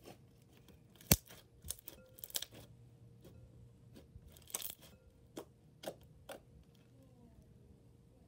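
Freshly activated slime being kneaded, pressed and stretched by hand, giving a string of sharp sticky clicks and pops with soft tearing between them. The loudest pop comes about a second in.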